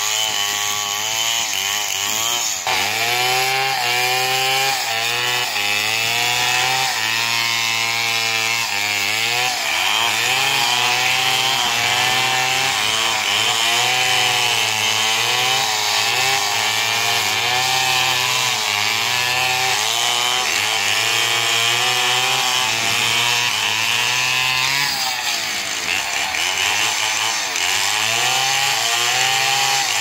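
Chainsaws cutting through a thick felled tree trunk, for most of the stretch two saws at once, one of them a Stihl. Their two-stroke engines run near full throttle, the pitch sagging and recovering again and again as the chains bite into the wood.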